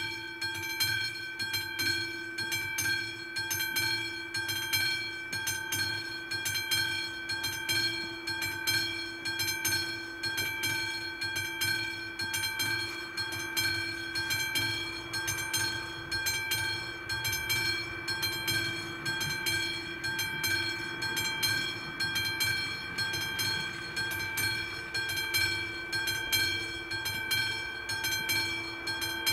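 Classic electric bell of an AŽD 71 level-crossing warning system ringing continuously, a rapid steady clanging at a fixed pitch, warning that a train is approaching.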